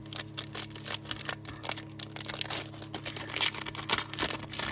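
Foil Pokémon booster pack wrapper crinkling and tearing as it is opened by hand: a rapid, irregular run of crackles.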